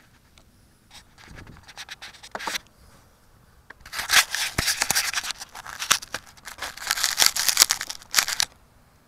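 Handling noise picked up by a camera mounted on a model glider: hands gripping and rubbing the airframe, scratching and crackling, heaviest from about four seconds in until shortly before the end.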